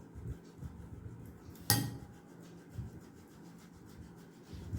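Boiled potato being grated by hand on a kitchen grater: soft rubbing strokes, with a sharp knock on the grater about two seconds in.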